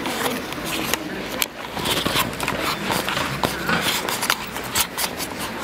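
Street noise picked up by a handheld camera carried along a pavement at walking pace: a steady rushing hiss with irregular clicks and knocks.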